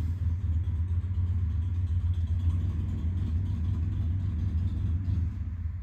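Steady low rumble of an idling engine, which fades away right at the end.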